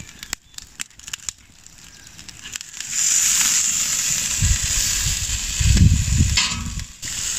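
Marinated roast beef sizzling on the hot grate of a charcoal kettle grill: a few metal tong clicks, then from about three seconds in a loud steady sizzle as the meat is set down, with some low thumps as it is pushed into place with the tongs.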